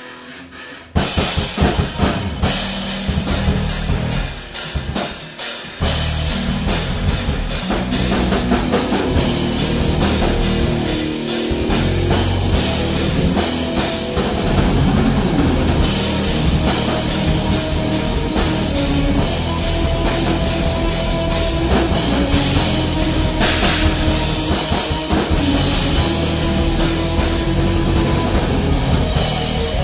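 Live rock band improvising on two notes, E and F: drum kit and guitar playing loudly and roughly. The full band comes in about a second in and gets fuller around six seconds in.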